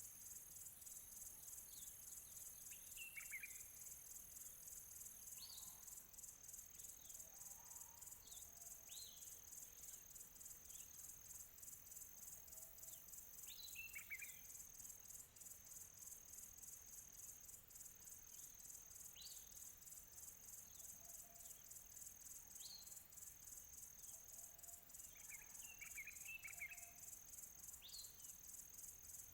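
Faint crickets chirping in a steady, fast-pulsing high trill, with scattered short chirps from distant birds, a few brief flurries of them about 3, 14 and 26 seconds in.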